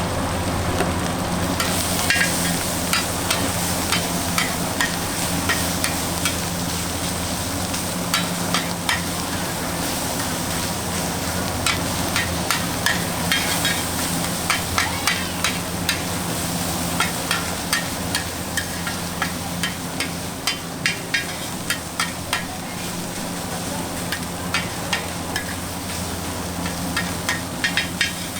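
Fried rice being stir-fried in a wok: a steady sizzle with repeated sharp clinks of a metal utensil scraping and striking the wok.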